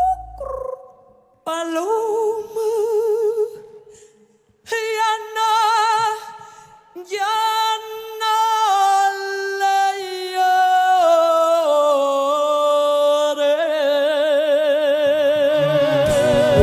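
A woman singing long held notes of a Mexican ranchera, nearly unaccompanied, with a wide vibrato. The phrases are separated by short pauses and the notes step down in pitch. Low instruments come in near the end.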